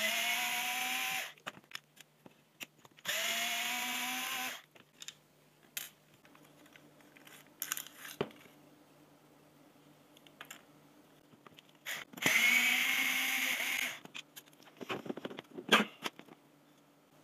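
Small cordless power screwdriver running in three short bursts of about a second and a half each, its whine rising slightly as it spins up, backing screws out of a cordless drill being taken apart. Plastic clicks and handling rattles fill the gaps, with a brief clatter near the end.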